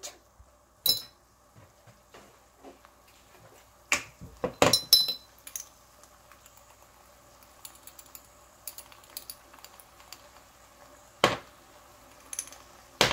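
Kitchen utensils clinking: a handful of sharp metallic clinks and knocks, a cluster of them about four to five seconds in. Under them, a mushroom sauce simmers with a faint, steady bubbling in a stainless steel pan.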